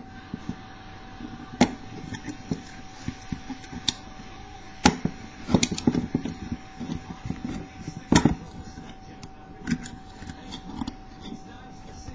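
Metal lock pick and tension wrench clicking and scraping against a four-lever padlock as the pick is worked into the keyway, with irregular sharp clicks, the loudest about five and eight seconds in. A steady faint hum sits underneath.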